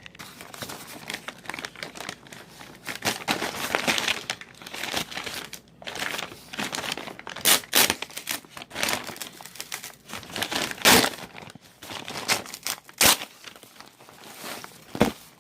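Packaging being crinkled, crumpled and torn by hand as a mailed package is opened, in irregular bursts with several sharp louder rips.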